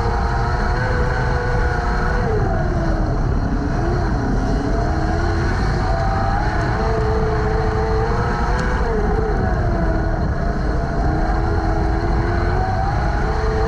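Jr Sprint race car engine running hard, heard from inside the cockpit over a heavy rumble, its pitch dipping and rising again a few times as the car slows into the turns and accelerates out.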